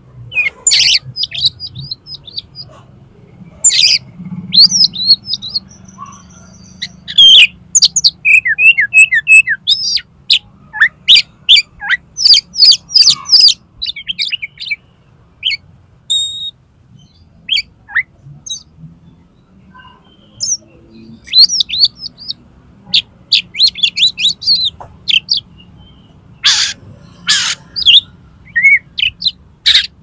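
Oriental magpie-robin singing a loud, varied song of sharp chirps, quick trills and whistled phrases in bursts with short pauses, pouring out its repertoire of mimicked notes as a challenge to rival males.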